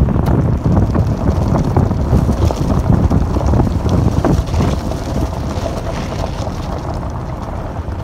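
Wind buffeting the microphone over a steady low rumble and crunching of tyres rolling along a gravel road.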